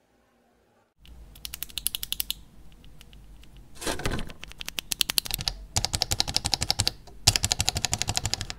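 Mechanical key switches clicked in fast runs, about a dozen sharp clacks a second, in four bursts separated by short pauses, starting about a second in.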